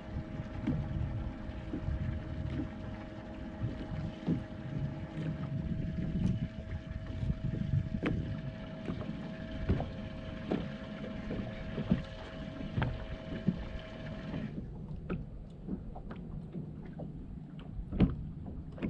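Boat ambience: wind buffeting the microphone as a low rumble, with scattered sharp clicks and knocks and a steady whine. The whine and the higher hiss cut off abruptly about fourteen seconds in.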